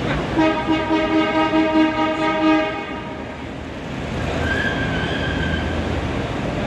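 A vehicle horn sounds one steady blast lasting a little over two seconds, over a low rumble. A fainter, higher tone is heard briefly about five seconds in.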